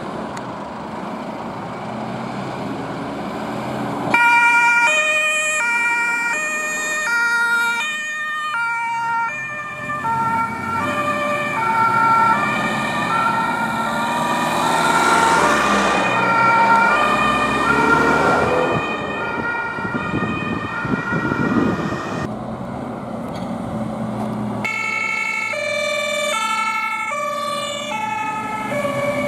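German fire engines' two-tone sirens (Martinshorn) alternating between two pitches over diesel truck engine noise. The sirens start about four seconds in, and two sirens at different pitches overlap through the middle. There is a short break near the end before a siren starts again.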